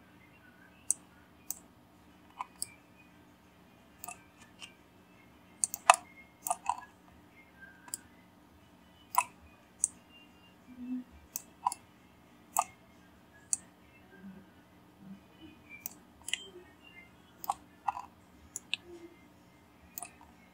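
Irregular clicking of a computer mouse and keyboard, about one or two sharp clicks a second, as objects are selected and moved in Blender.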